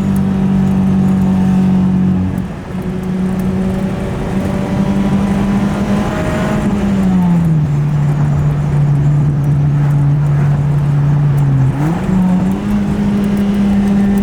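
H22-swapped Honda Accord wagon's engine running at a steady pitch while driving. It dips briefly about two seconds in, then slides down to a lower steady pitch about seven seconds in and climbs back up near twelve seconds.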